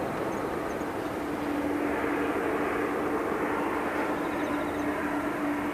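Boeing 787-8 Dreamliner's Rolls-Royce Trent 1000 turbofans on landing approach, a steady jet noise with a steady low hum that grows a little louder after about a second and a half as the airliner draws nearer.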